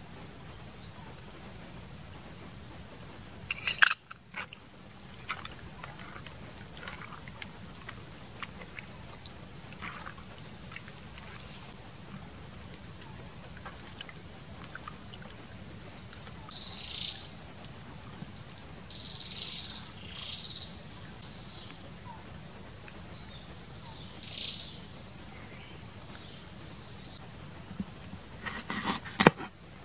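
Wet squelching of hands mixing raw eel pieces in marinade, in short bursts against a steady background of insects. There is a sharp knock about four seconds in, and near the end a cleaver chops rapidly on a wooden board.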